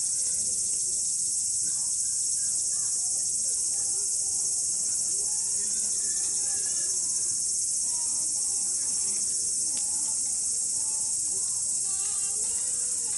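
A dense chorus of crickets and other night insects, a steady high-pitched trilling that never lets up, with faint voices talking underneath.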